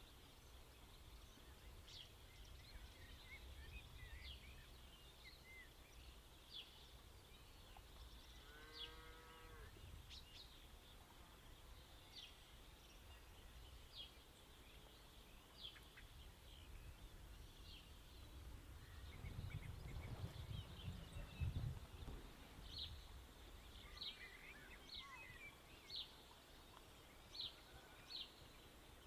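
Near silence: faint outdoor ambience with scattered short, high chirps. A brief pitched call about nine seconds in, and a low rumble for a couple of seconds around twenty seconds in.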